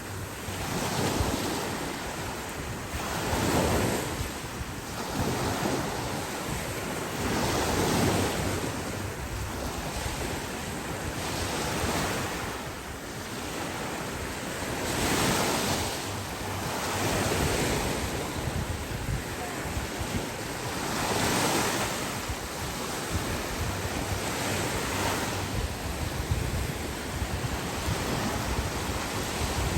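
Sea waves breaking and washing up the beach, swelling and falling back every few seconds, with wind buffeting the microphone.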